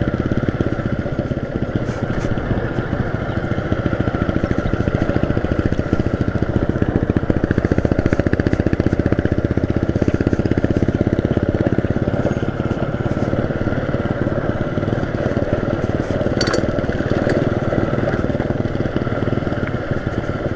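Small single-cylinder motorcycle engine running steadily while the bike is ridden along a rough off-road dirt track. It gets a little louder for several seconds a few seconds in.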